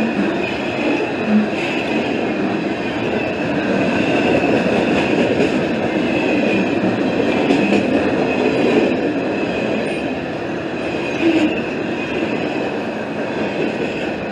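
CSX freight train's gondola cars rolling past close by: a steady, loud rumble of steel wheels on rail with a continuous high wheel squeal over it.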